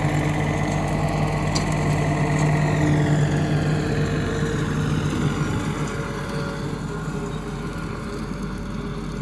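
Compact diesel tractor running under load while pulling a rotary cutter (bush hog) through dry pasture grass. It is a steady engine note that grows fainter after about five seconds as the tractor moves away.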